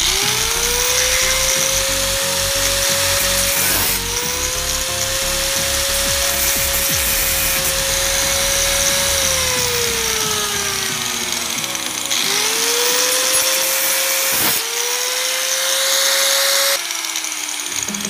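Angle grinder cutting through the steel shell of a single-door refrigerator compressor: the motor's whine rises as it spins up, then sags in pitch as the disc bites, over a harsh cutting hiss. It breaks off briefly a few times and stops about a second before the end.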